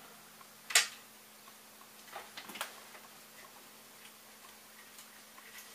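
Small clicks and taps of plastic 3D-printer parts being handled during assembly: one sharp click about a second in, two softer clicks a little after two seconds, then a few faint ticks.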